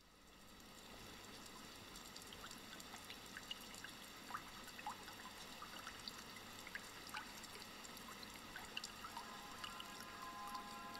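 Faint trickling water fades in from silence, with scattered small clicks through it. About nine seconds in, steady musical tones begin to sound over it.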